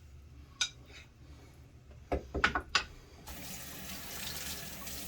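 A few light clicks and knocks of handling, then about three seconds in a tap is turned on and water runs steadily, growing slightly louder.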